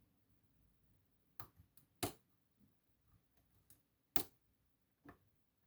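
Four faint, sharp clicks, the loudest about two seconds in, from a lock pick and tensioner working the pins in a DOM Plura lock, with near silence between them.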